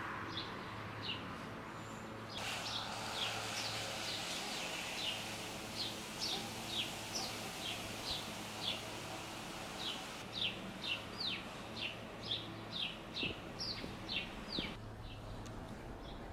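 A songbird repeatedly giving short, high, downward-slurred chirps, two or three a second, stopping near the end, over steady faint background noise with a low hum.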